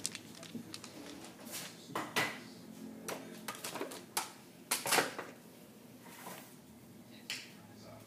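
A small dog moving about on a wooden floor: scattered clicks and short scuffing noises, with the loudest cluster about five seconds in.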